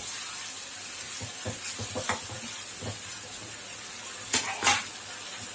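Chicken Manchurian sizzling in a pan while being stirred, with scattered clicks and scrapes of the utensil and two louder knocks about four and a half seconds in.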